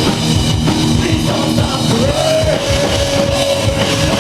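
Loud rock band playing, with drum kit and guitars and a long held note in the second half.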